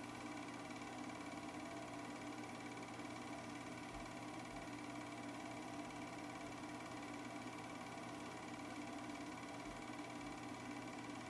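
8mm film projector running, a steady hum and whir from its motor and fan.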